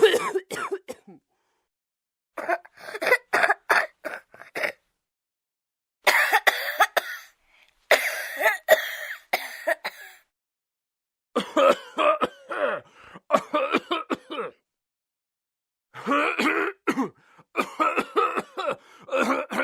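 Human coughing and throat clearing in about seven separate fits, each a run of several quick, harsh coughs, divided by short silent gaps.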